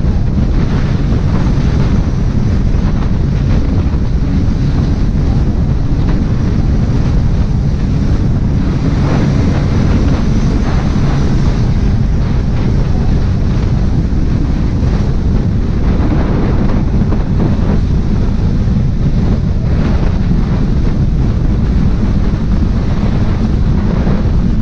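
Loud, steady wind buffeting the microphone, a dense low rumble with no clear engine note.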